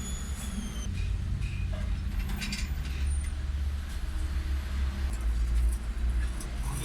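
A steady low vehicle rumble, with light metallic clinks now and then.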